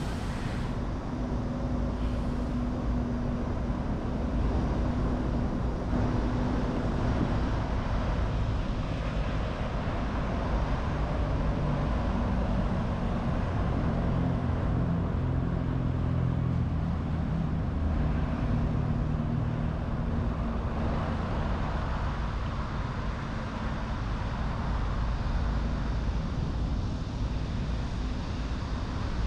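Road traffic: a steady rumble of vehicle engines running, with low engine hums that shift in pitch as vehicles move.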